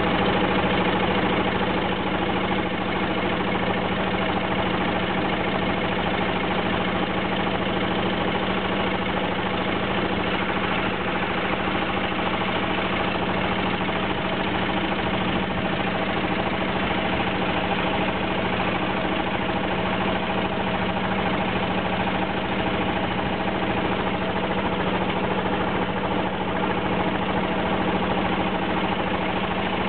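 A boat's engine running steadily at an even pitch, heard from on board the moving boat.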